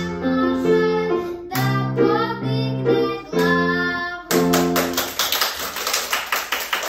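A young girl sings a short solfeggio song with piano accompaniment, which ends on a held chord about four seconds in. Children then clap.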